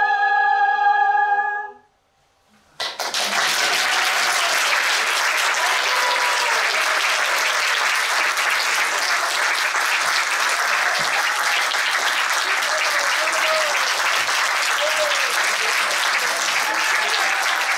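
A small vocal ensemble of opera singers holds the final chord of a song, cutting off about two seconds in. After a brief silence the audience breaks into steady applause, with a few voices calling out over it.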